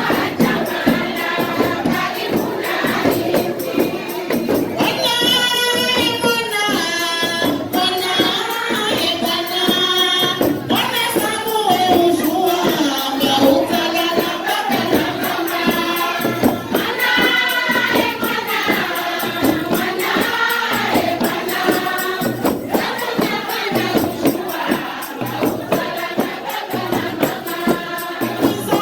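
Algerian wedding song: a group of voices singing together over a steady percussion beat.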